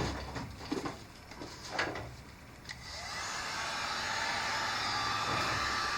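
A few light handling knocks, then an electric heat gun switched on about three seconds in, its fan spinning up to a steady blowing hiss, used to shrink heat-shrink tubing over a soldered wire splice.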